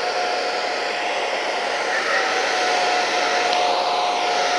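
Handheld hair dryer running steadily and very noisy: a constant fan whine over a rush of blown air.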